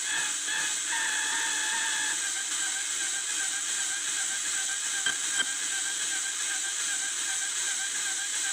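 Electronic tone from a signal detector pulsing about twice a second over a steady hiss, holding one steady note for about a second near the start. Two short clicks come about five seconds in.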